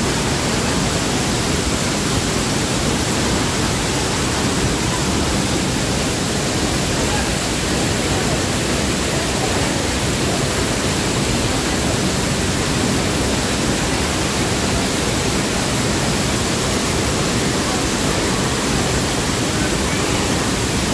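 Waterfall rushing, a loud steady hiss of falling water that does not change.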